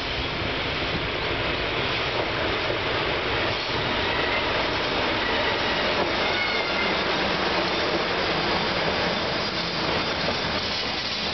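A JR DE10 diesel-hydraulic locomotive passing close at low speed with its engine running, followed by Hoki 9500 limestone hopper wagons rolling by on the rails. The sound is steady throughout, with a few faint, brief high squeals around the middle.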